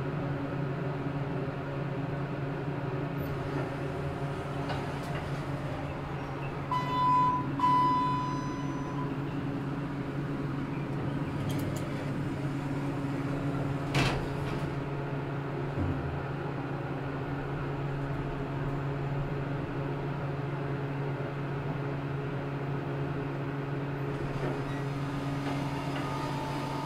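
Steady low machine hum, with two short electronic beeps about seven seconds in and a single sharp click about halfway through.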